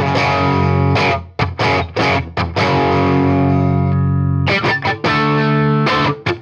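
Fernandes JG-65S electric guitar played with a distorted tone: short chopped chords, then a chord left to ring for about two seconds, then more quick chops and a shorter held chord. It is on its bright setting, with the neck pickup in use by the later part.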